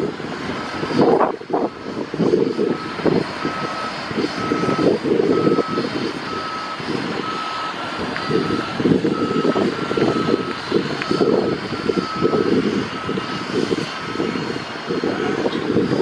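Backup alarm of a construction vehicle beeping steadily on one high tone, about three beeps every two seconds, over a loud low rumble that swells and dips.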